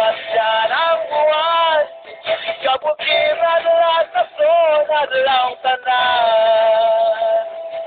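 A man singing a melody with long held notes and short breaks between phrases. The recording is thin, with no treble, like an old low-quality phone video.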